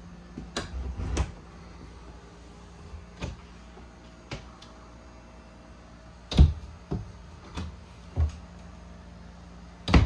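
Glass-front overhead cabinet doors being opened and shut by hand: a string of knocks and clicks, loudest about six seconds in and at the end, over a steady low hum.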